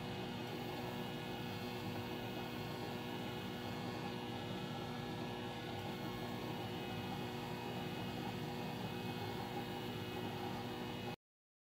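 Powder coating setup running while the gun sprays powder: a steady hum with an even hiss of air. It cuts off suddenly near the end.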